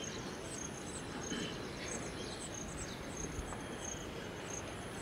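Insects chirping in a high-pitched, evenly repeating pulse about two to three times a second, over steady low outdoor background noise.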